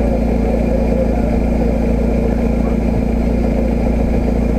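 A vehicle engine running steadily at constant speed, loud and unchanging, with no revving or change in pitch.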